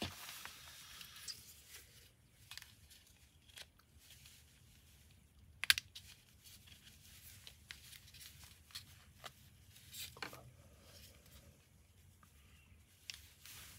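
Backing film being peeled off an adhesive mounting pad, with small scattered clicks and crinkles as the plastic parts are handled, and one sharper click a little over halfway through.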